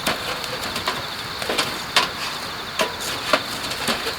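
Wood fire crackling with irregular sharp pops, over a steady high chirring of crickets.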